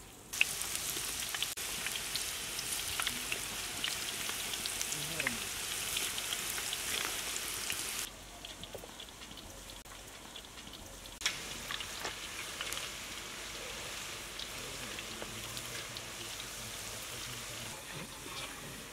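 Breaded onion rings deep-frying in hot oil in a large kadai, a dense crackling sizzle. It is loud for the first half and drops suddenly to a quieter sizzle about eight seconds in.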